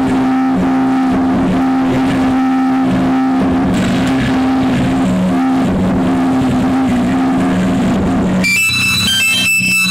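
Recorded backing track for a mime act: a loud, sustained low drone of steady held tones, switching abruptly about eight and a half seconds in to a high, stepping electronic melody.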